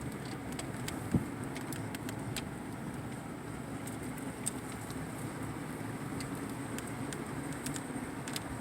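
Car driving along at a steady pace: a steady low road and engine drone with scattered faint ticks, and a single sharp thump about a second in.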